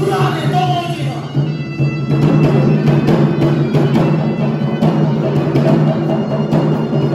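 Traditional Bugis-Makassar dance music: a steady droning tone, with drum strokes coming in about two seconds in.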